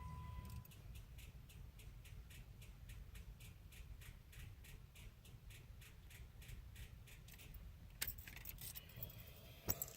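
2015 Jeep that won't start: a steady electronic chime stops just after the start, then faint, rapid, even clicking, about three a second, runs for several seconds, the sign of a battery too weak to crank the engine. A few louder knocks follow near the end.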